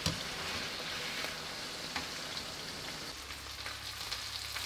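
Sablefish fillets sizzling steadily in coconut oil in a frying pan, with a few light clicks from metal tongs against the pan.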